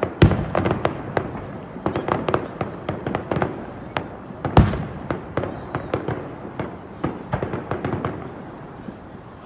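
Fireworks display going off: a rapid, irregular string of bangs and crackling pops, with the loudest booms just after the start and again about four and a half seconds in.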